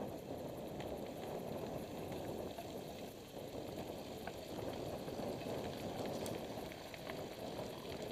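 Mountain bikes riding along a dirt forest trail, heard from a camera on one of the bikes: a steady rough rolling noise of knobby tyres on dirt, with scattered small clicks and rattles from the bike.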